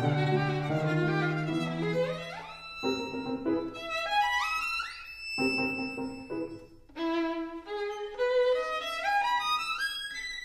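Background music led by a violin, playing several quick rising runs of notes.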